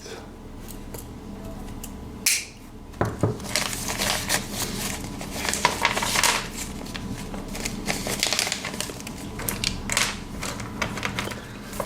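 A bag of zipper pulls being opened and rummaged through by hand: rustling with many small clicks, with a longer stretch of louder rustling around the middle.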